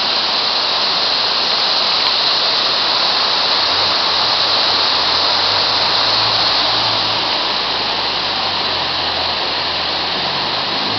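Rushing water, a steady, loud rush like a forest waterfall or fast stream, with a faint low rumble underneath from about four seconds in.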